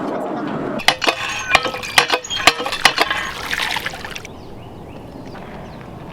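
A run of sharp knocks and clinks with a short metallic ring, from climbing on metal playground equipment. The sound then cuts to quieter open air with faint bird chirps.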